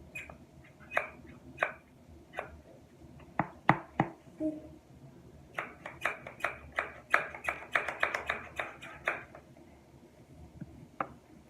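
Slime being worked in the hands, giving sharp pops and clicks: a few scattered ones at first, then a quick run of about four a second for several seconds.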